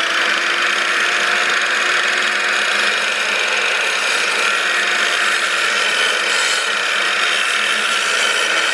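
Electric sliding mitre saw running at full speed, its blade cutting through a thick timber board: a loud, steady motor and blade noise.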